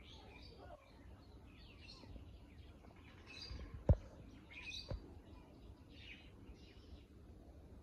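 Birds chirping in short, high, scattered calls. Two sharp clicks come about four and five seconds in; the first is the loudest sound.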